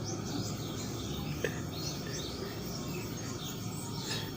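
Small birds chirping repeatedly in short calls over a steady background hum and hiss.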